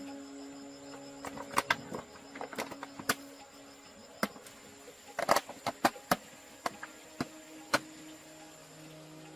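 Irregular sharp clicks and knocks, a dozen or so, bunched in two clusters about a second and a half and five seconds in, over a faint steady hum: tools and parts being handled during repair work.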